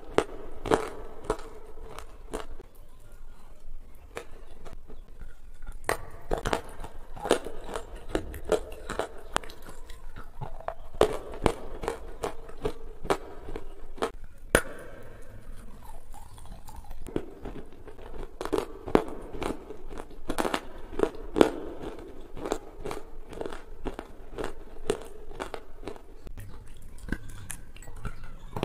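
Close-miked chewing of jamun (black plum) fruit: many short, sharp mouth smacks and clicks at an uneven pace.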